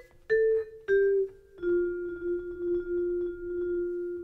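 Vibraphone played with yarn mallets: two struck notes stepping downward, then a lower note that rings on with a pulsing swell.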